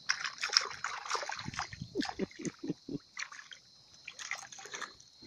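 Fish thrashing and splashing in a cast net as it is dragged through shallow water, with irregular splashes and sloshing. About two seconds in comes a quick run of about five short, low pulses.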